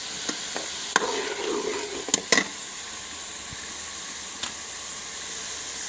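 Onion and tomato masala sizzling in oil in a metal karahi, a steady hiss, with a few sharp clicks about one and two seconds in.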